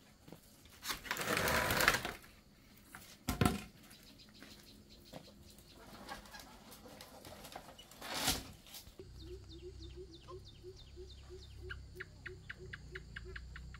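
Loud rustling scrapes and a single sharp knock as woven bamboo is handled, then, about two-thirds of the way in, a bird calling in a quick series of short repeated notes over a steady low hum.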